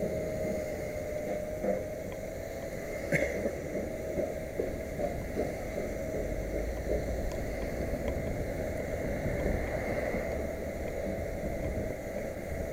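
Wheelchair rolling along the street: a steady whine over a low rumble, with a few small knocks and a sharper click about three seconds in.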